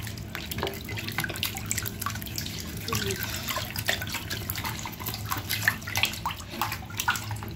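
Bathwater sloshing and splashing as a hand churns it, a string of small irregular splashes with foam toys and a sponge knocking about in the waves.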